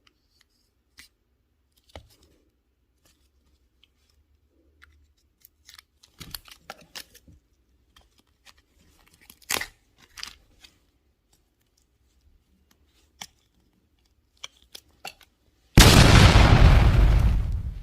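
Scattered faint clicks and crunching sounds, then near the end a sudden, very loud blast of noise that dies away over about two seconds: a startling sound effect of the explosion kind.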